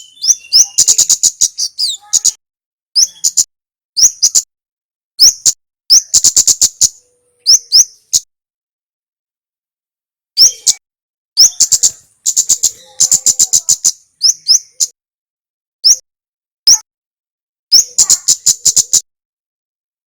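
Male kemade (kemlade merah) singing in bursts. Each burst is a rapid run of short, sharp, high-pitched chip notes, some strung into fast trills, and the song breaks off for about two seconds around the middle.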